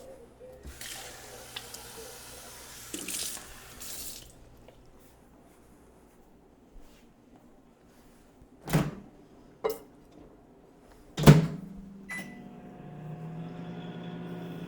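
Water running from a tap into a cup for about three seconds, then three sharp knocks, the third the loudest, and a short beep. A Sharp R-610DS microwave oven then starts running with a steady hum.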